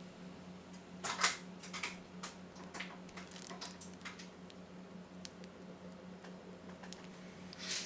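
Plastic piping bag crinkling and rustling in gloved hands as chocolate is squeezed out over the bars, in short bursts, loudest about a second in and again just before the end. A steady low hum runs underneath.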